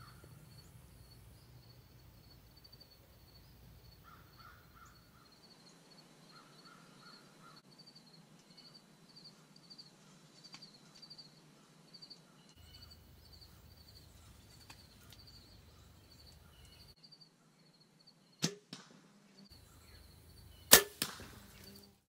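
A compound bow being shot: two sharp cracks about two seconds apart, the second much louder, over faint, steady insect chirping.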